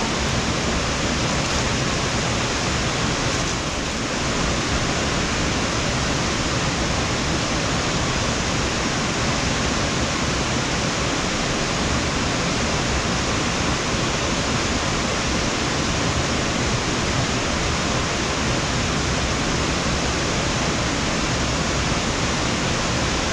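A steady, loud rushing noise like heavy hiss, even across low and high pitches, that hardly changes.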